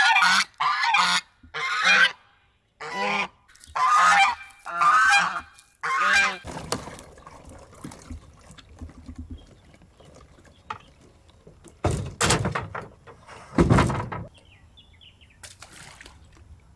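A bird honking loudly and repeatedly, about eight calls in the first six seconds, in the manner of a goose; later come two short bursts of noise.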